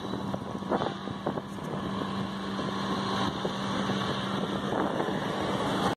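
A steady engine hum, with wind noise on the microphone and a few light knocks.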